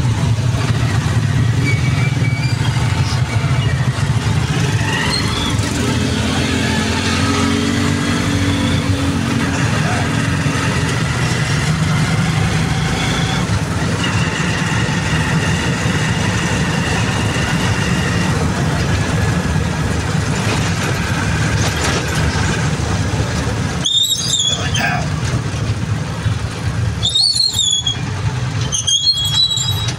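Motorcycle engine of a tricycle (a motorcycle with a sidecar) running as it rides along, a steady low drone. Three short high-pitched squeals come near the end.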